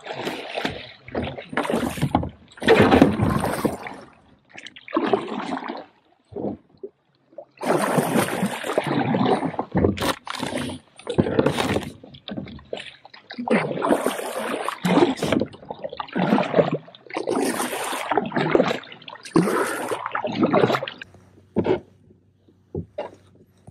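Kayak being launched and paddled: water splashing and sloshing around the hull and paddle blades, in uneven bursts about once a second, with a short lull about six seconds in.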